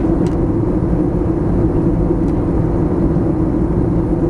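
Steady cabin noise inside an Airbus A321neo climbing after takeoff: an even rush of air with a steady low hum from its CFM LEAP-1A engines.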